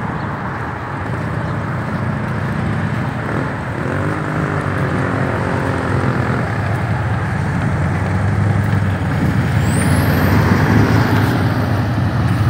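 Motorcycle engines running amid passing road traffic. One engine's pitch rises and then holds about four seconds in, and the sound grows louder toward the end.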